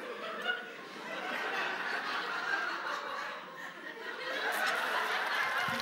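Studio audience laughing, growing louder near the end.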